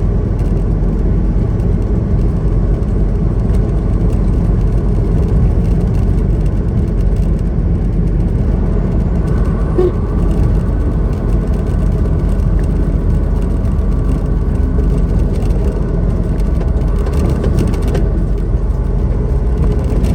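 Semi-truck on the road: a steady engine drone mixed with road noise, concentrated low, with no change in speed.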